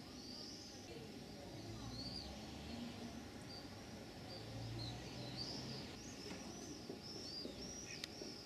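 Small birds twittering faintly: a quick, continual run of short high chirps, with a single sharp click near the end.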